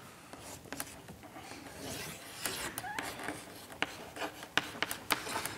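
Chalk writing on a blackboard: short scratching strokes with sharp taps, the taps coming more often in the second half.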